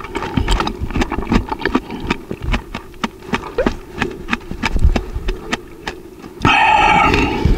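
Close-miked wet chewing and crunching of fresh produce, a quick run of small crackles and clicks. About a second before the end, a louder sustained pitched sound cuts in.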